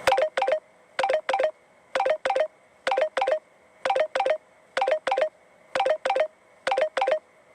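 Samsung Galaxy Tab S2 ringtone: short electronic double beeps, a pair about once a second, in a steady repeating pattern like a telephone ring.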